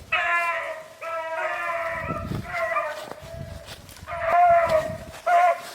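Rabbit-hunting dogs baying in long drawn-out howls, several cries one after another and overlapping, as the pack runs a rabbit's trail. The loudest cries come about four seconds in.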